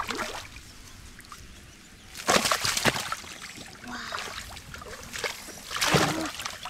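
Shallow muddy water sloshing and splashing as hands work through it, with louder splashes about two seconds in and again near the end.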